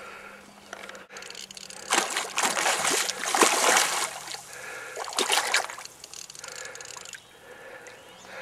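A hooked trout thrashing at the water's surface: loud splashing for about two seconds, then a shorter splash about a second later.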